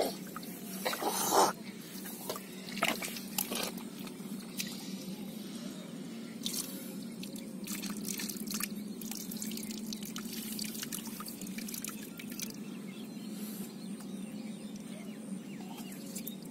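Muddy water splashing and dripping as hands scoop mud and water into a metal bowl, with the loudest splash about a second in and scattered drips and sloshes after. A steady low hum runs underneath.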